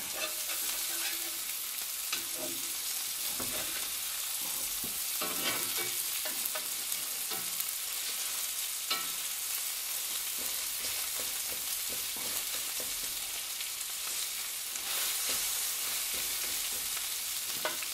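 Hamburger steaks searing in a hot cast iron skillet, sizzling steadily, while a metal spatula scrapes and taps against the pan now and then as the patties are pressed flat.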